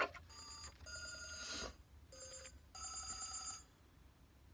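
Telephone ringing sound effect in a recorded children's story, several short rings played through a speaker.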